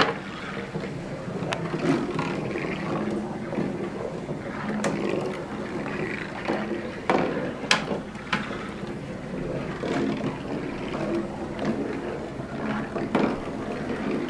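Marbles rolling along the poster-board track of a balsa-wood model roller coaster: a continuous rolling rumble with a few sharp clicks as marbles knock against the track or each other.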